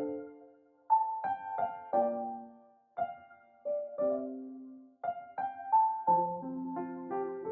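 Solo piano music: a slow melody of single notes and chords, each note struck and left to ring and fade.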